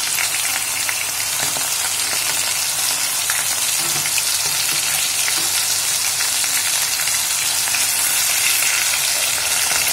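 Chicken pieces shallow-frying in hot oil and butter, a steady loud sizzle with scattered crackles, while a spoon turns them over once one side has browned.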